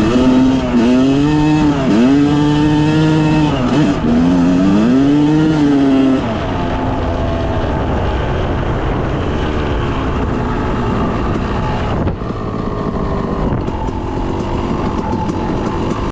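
Two-stroke dirt bike engine revving up and down, its pitch climbing and dropping with the throttle several times. About six seconds in it settles to a lower, rougher, steadier note under a rushing noise.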